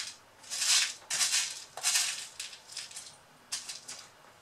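Small loose screws rattling as a hand rummages through a container of them, in a run of short rattling bursts about twice a second that thin out near the end.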